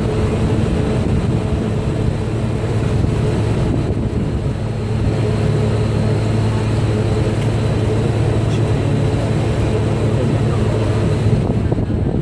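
Vaporetto waterbus diesel engine running at a steady hum under way, with water rushing along the hull. The engine hum eases off near the end.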